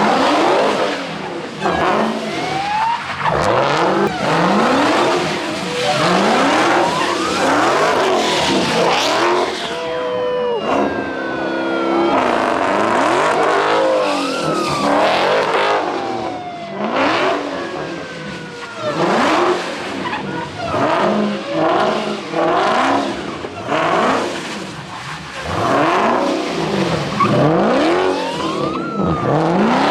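Car engines revving hard again and again, pitch climbing and dropping in quick sweeps, mixed with tires spinning and squealing.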